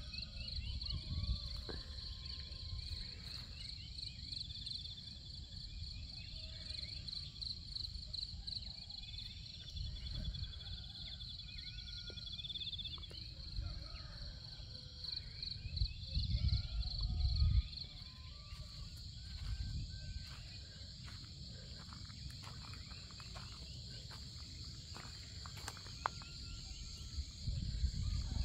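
Crickets or other insects chirring in a steady, fast-pulsing high chorus, with scattered faint short calls beneath it and a low rumble on the microphone now and then, strongest around 16 to 18 seconds in.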